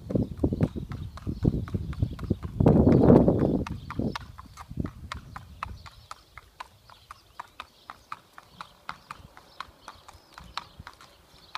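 A horse's hooves clip-clopping at a walk on a hard sealed path, a steady run of clops that fade as the horse is led away. A louder rush of noise comes about three seconds in.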